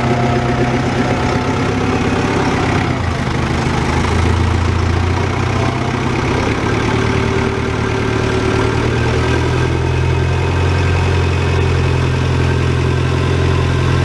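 Fendt tractor's diesel engine running steadily under load as it climbs a maize silage heap to compact it, its note settling a little lower about four seconds in.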